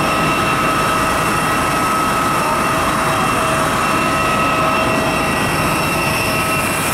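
A jet airliner running on the airport apron: a steady high whine over a loud, even rushing noise.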